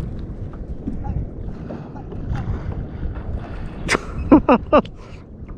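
Wind noise on the microphone over low water noise around a kayak at sea. About four seconds in, a quick run of four short cries, each falling in pitch.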